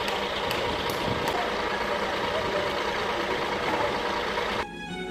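Heavy truck engine running steadily. About four and a half seconds in it cuts off sharply and violin music begins.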